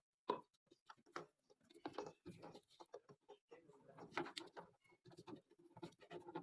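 Faint, irregular clicks and knocks, with one sharper tap about a third of a second in.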